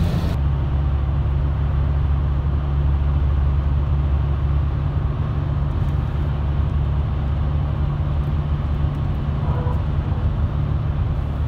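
Steady low engine and road rumble heard inside the cabin of a moving car driving through a road tunnel.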